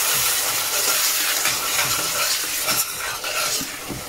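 Chopped onions sizzling in oil in a metal saucepan as a metal spoon stirs them, scraping and clicking against the pan; the onions are being softened over low-medium heat. The sizzle drops a little near the end.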